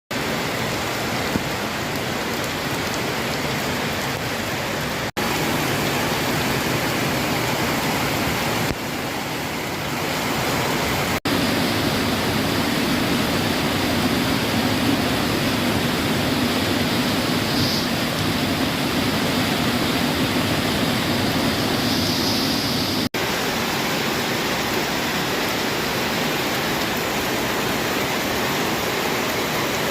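Steady rushing water from days of heavy rain, a dense even hiss. It breaks off for an instant three times where clips are joined.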